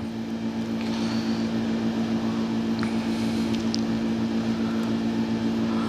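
Steady low machine hum made of several even tones, pulsing slightly, with a couple of faint clicks partway through.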